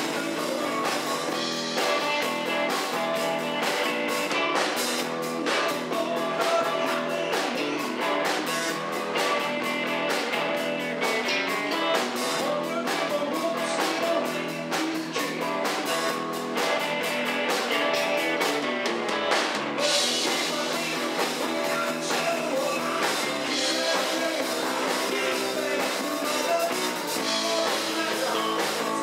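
Live rock band: a man singing into a microphone over electric guitar and drums, with a steady beat.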